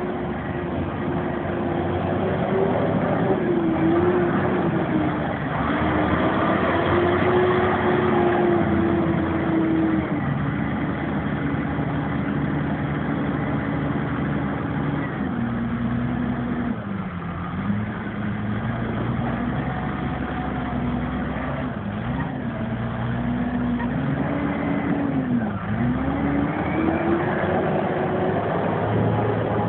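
Diesel engines of two Massey Ferguson 6475 tractors working under load as they push up and compact a maize silage clamp. The engine pitch rises and falls repeatedly as they climb and back down the heap, with two sharp dips in the second half.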